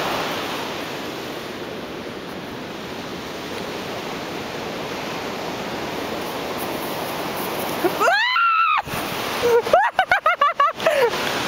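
Steady wash of surf on a beach. About eight seconds in, a loud, high voice cries out, rising and then falling in pitch, followed a second later by a quick run of short pitched pulses.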